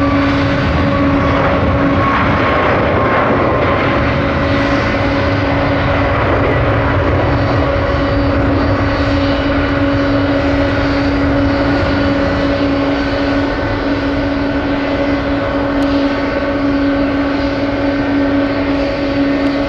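Jet airliner engines running, a loud steady noise with a constant whine held over it.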